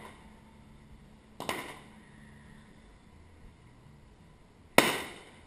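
Aerial firework shells bursting: a bang about a second and a half in and a louder one near the end, each dying away over about half a second.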